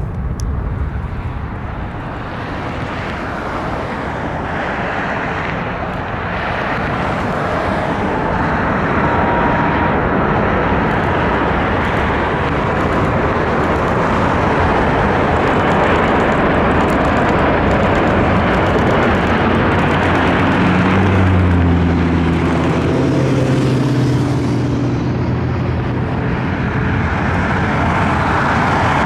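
Airbus A350-1000's two Rolls-Royce Trent XWB-97 turbofans on a landing arrival, the jet noise building over the first several seconds and then staying loud. In the second half, steady engine tones slide down in pitch.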